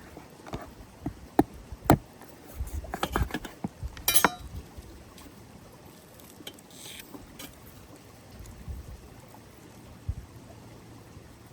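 Cooking utensils and food being handled: a run of light knocks and clicks, with one ringing metallic clink about four seconds in, then only a few faint taps.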